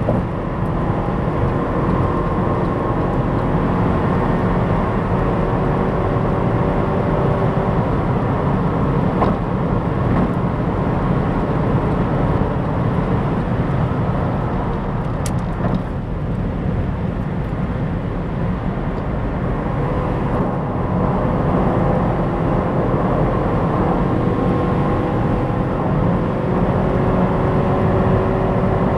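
Opel Insignia GSI driving at high speed on the autobahn. A steady haze of road and wind noise runs throughout, with the engine's drone slowly climbing in pitch as the car accelerates. The engine tone fades under the noise around the middle, then climbs again toward the end.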